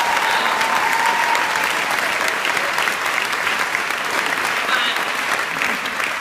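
Audience applauding steadily, a dense patter of many hands, easing off a little near the end.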